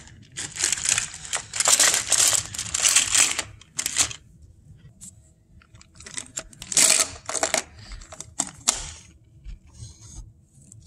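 Plastic toy train engine and trucks being handled on a wooden floor: several bursts of clattering and scraping, with a faint steady hum underneath.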